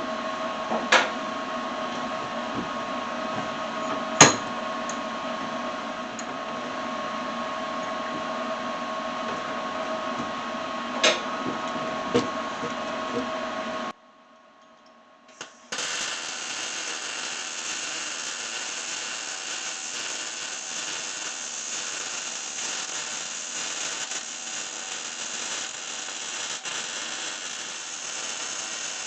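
A steady machine hum with a few sharp clicks. After a brief cut, the steady crackling hiss of an arc welder welding up the fabricated bolt.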